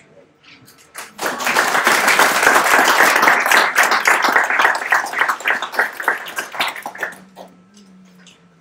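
Audience applauding, starting about a second in and dying away after about six seconds.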